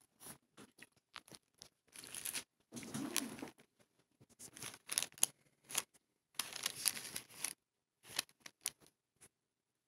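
Handling noise: irregular scraping rustles and small clicks, in bursts that are loudest around three and seven seconds in.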